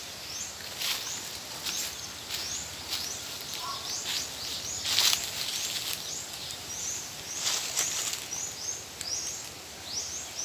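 Outdoor ambience: a bird repeating short, high, rising chirps about twice a second, with a few louder rustles of dry leaves, about one, five and seven and a half seconds in.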